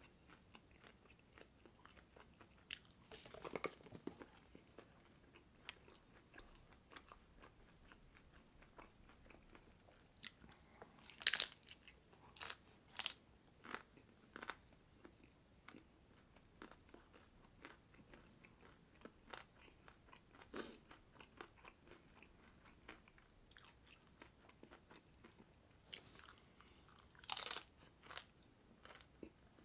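Faint close-up eating sounds: a person chewing crunchy fast food, with scattered crisp crunches and wet mouth clicks. There are louder bursts of crunching about a few seconds in, around a third of the way through, and again near the end.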